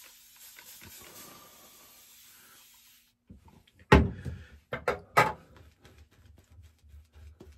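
Soft rubbing hiss that fades out over the first three seconds, then a sharp knock about four seconds in and a couple of lighter clicks a second later, as shaving gear is handled and set down.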